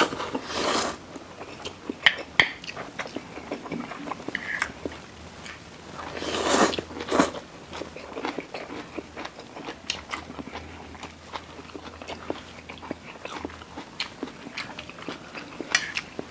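Close-up eating sounds of two people slurping and chewing Samyang fire noodles: wet chewing with small mouth clicks throughout and louder slurps about half a second in and again around six to seven seconds in.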